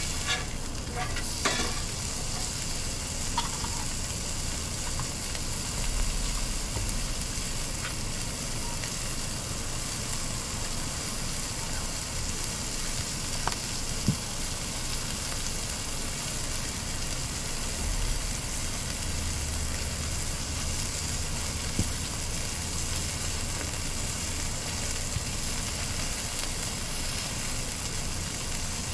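Hamburger patties sizzling on a propane flat-top griddle: a steady frying hiss with a few faint clicks.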